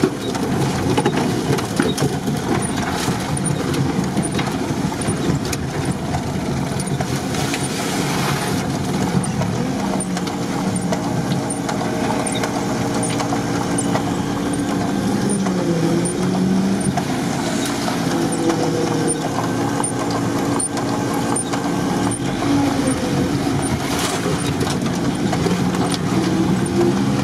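An off-road 4x4's engine heard from inside the cab, running under load as it drives over rough ground, with the revs rising and falling. There are occasional knocks and rattles, one sharp knock near the end.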